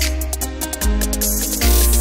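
Background music with a steady beat and deep bass notes changing about every second.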